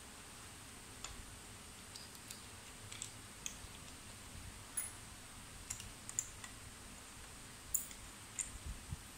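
Faint, irregular clicks and light taps of small parts being handled as a child-seat mount is fitted onto an e-bike's frame tube, about a dozen scattered through, the loudest near the end.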